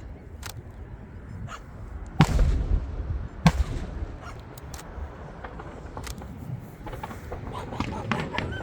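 Aerial fireworks going off: a continuous low rumble of distant booms with scattered sharp cracks, the two loudest bangs about two and three and a half seconds in.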